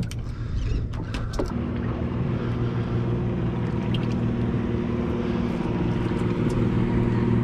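A 150 hp outboard motor running steadily at low revs, with an even hum that grows slowly louder. In the first second and a half there are a few sharp clicks and knocks from fishing tackle being handled.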